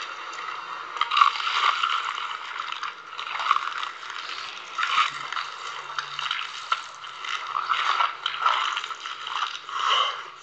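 Crispy coating of McDonald's fried chicken crunching and crackling as pieces are torn apart and bitten. The crunching comes in uneven bursts about once a second.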